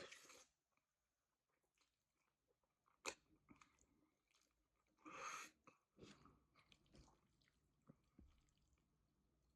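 Faint close-up chewing and mouth sounds of a person eating, with a sharp click about three seconds in and a brief noisy burst about five seconds in.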